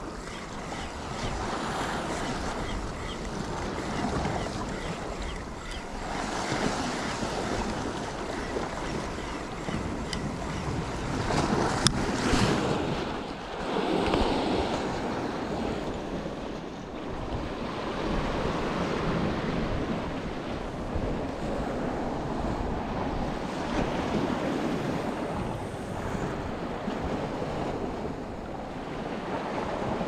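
Sea waves washing against rocks, with wind buffeting the microphone, swelling and easing every few seconds. A single sharp click near the middle.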